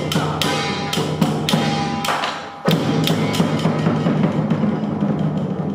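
Traditional temple percussion music: drums and ringing metal percussion struck in a steady beat, about three strikes a second, broken off abruptly about two and a half seconds in and picking up again at once.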